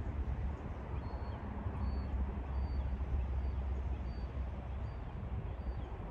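Wind buffeting the microphone as a steady low rumble, with a faint high chirp repeating about every three-quarters of a second.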